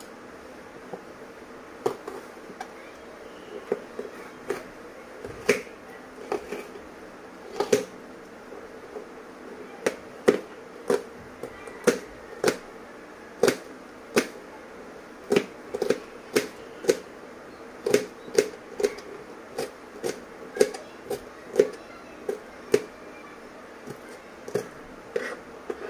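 Kitchen knife dicing a green bell pepper on a plastic cutting board: sharp, irregular knocks of the blade hitting the board. They are sparse at first and come faster from about ten seconds in.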